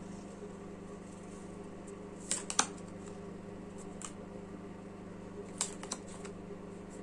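A few light clicks and taps, a pair and then a small cluster, over a steady low hum.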